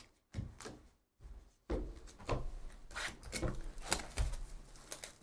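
Cardboard Panini Donruss basketball hobby box being handled and opened: a few light knocks, then from under two seconds in a run of scraping, rubbing and clicking of cardboard as the box is worked open.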